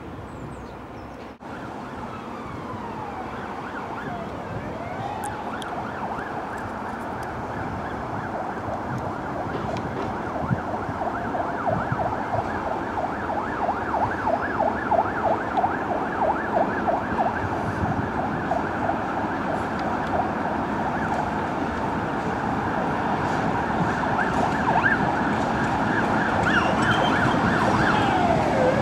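Diesel locomotive approaching, its engine drone growing steadily louder throughout, with a sustained rapid flutter in the mid-range.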